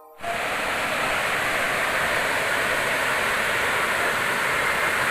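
Waterfall: a steady, even rush of falling water that cuts in suddenly at the start.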